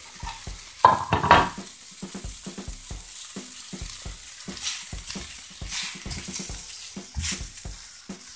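Beef-and-pork patties sizzling and crackling in a ridged grill pan, nearly done. About a second in comes a loud clatter as a ceramic plate is set down on the counter, and a utensil knocks against the pan near the end.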